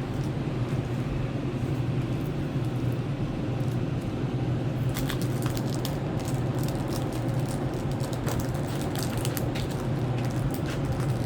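Packaging rustling and crinkling in a child's hands, with scattered crackles and clicks from about five seconds in, over a steady low room hum.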